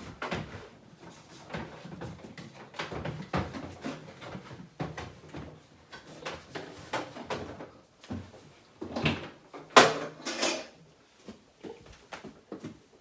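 Built-in Lamona HJA 7030 microwave being slid out of its kitchen-unit housing: its casing makes a run of scrapes, rubs and knocks against the cabinet, with the loudest sharp knock about ten seconds in.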